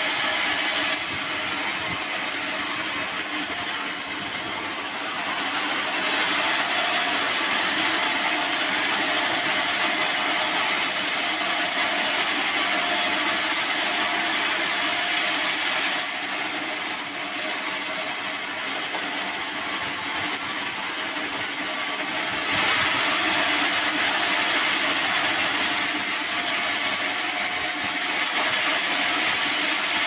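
Band sawmill running, its steel band blade sawing through a mahogany log: a steady machine noise that dips slightly twice for a few seconds each.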